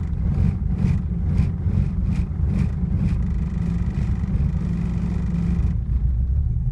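1986 Porsche 944 NA's 2.5-litre four-cylinder engine idling, with a faint pulse about twice a second early on that fades, and a duller rumble near the end. The engine has been hard to start and stumbles.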